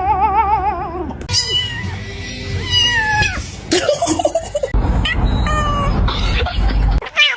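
Domestic cat meowing repeatedly, a run of short calls that fall in pitch, after a long wavering cry that ends about a second in.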